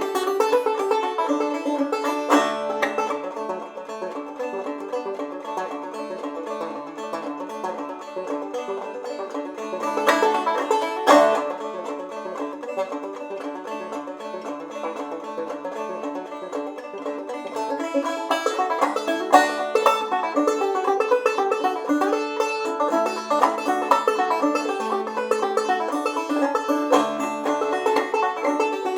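Clawhammer banjo in double D tuning playing an old-time fiddle tune, a steady stream of picked notes and brushed strums.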